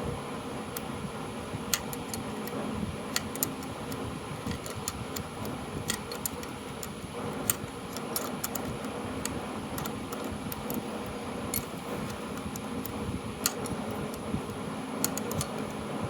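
Electric fan running steadily, with scattered sharp, irregular metallic clicks of a hand tool working a bolt loose on a starter motor.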